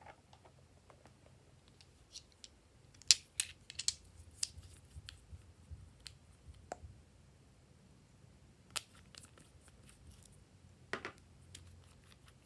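Sharp clicks and ticks of small glass nail polish bottles and their plastic caps being handled and opened, several in quick succession about three seconds in, then single clicks spaced out after.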